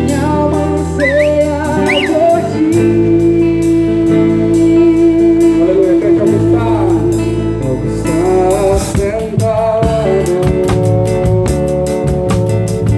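Live pagode-style worship band playing: sustained chords over a steady bass, with sliding melody lines and singing. The drum kit plays busier about nine seconds in.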